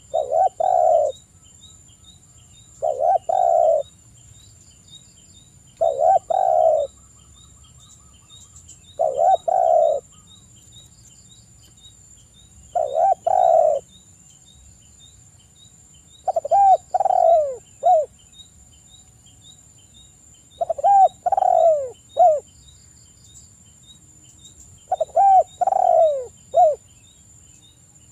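Spotted dove cooing: a low, hoarse phrase of a few notes, repeated eight times about every three to four seconds, the later phrases longer with falling notes. A faint steady high tone and soft rapid ticking run underneath.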